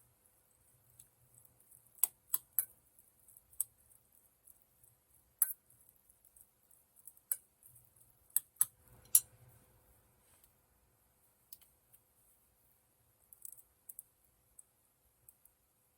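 Irregular sharp clicks and light taps of cooking utensils, about a dozen, scattered with pauses between them and the loudest in a small cluster near the middle.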